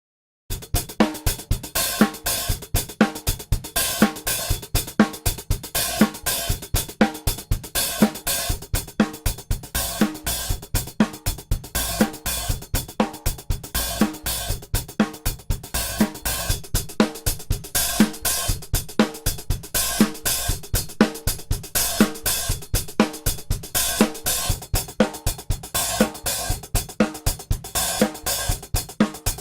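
Acoustic drum kit playing a steady groove, with hi-hat, snare drum and kick drum, starting about half a second in.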